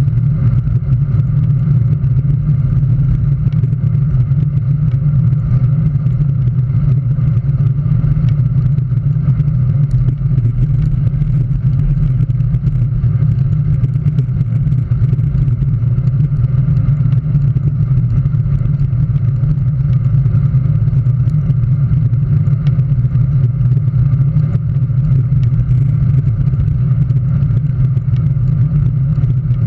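Steady engine rumble and wind rush from a vehicle cruising along a road, unchanging throughout.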